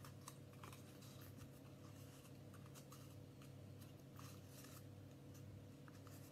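Near silence: faint scattered rustles and soft taps of glued paper being pressed down onto a cardboard toilet roll, over a low steady hum.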